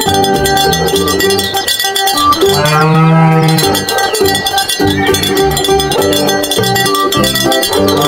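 Dubbed cow mooing sound effect: one long moo about two and a half seconds in, over light plucked background music.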